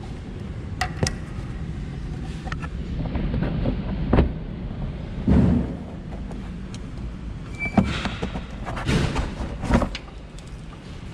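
Plastic clips holding an ABS sensor wire being pried out with a screwdriver and the wire handled: a scatter of separate clicks and knocks over a low steady rumble.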